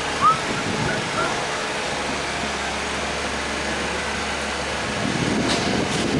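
Steady engine hum and street noise from construction machinery and traffic. There is a short, high arched squeak about a quarter second in, two fainter ones soon after, and a few faint clicks near the end.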